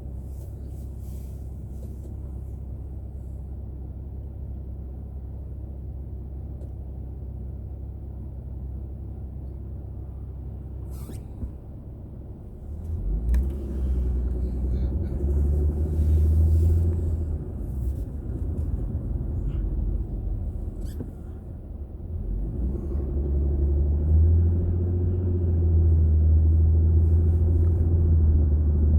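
Car engine and road noise heard from inside the vehicle: a low, steady hum, then about twelve seconds in the engine note grows louder and climbs in pitch as the car speeds up. It eases off briefly, then builds again toward the end.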